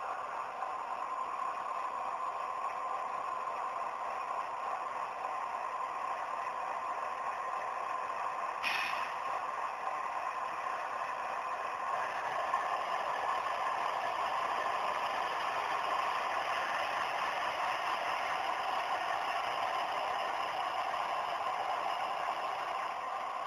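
Model diesel locomotive running along its track: a steady mechanical whine and rattle from its motor, gears and wheels, a little louder in the second half, with one brief sharp sound about nine seconds in.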